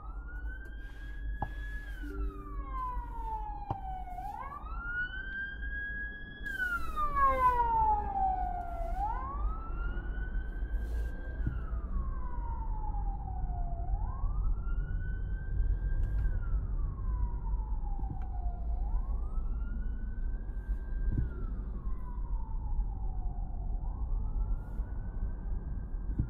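A siren wailing, its pitch rising quickly, holding, then gliding slowly back down, about once every five seconds, over a steady low rumble.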